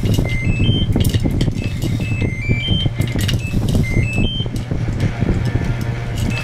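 Background music: a steady low drone under a short rising three-note figure that repeats about every two seconds.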